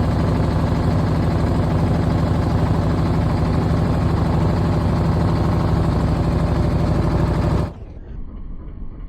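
A boat's engine running steadily, then cutting off suddenly near the end, leaving a quieter low rumble.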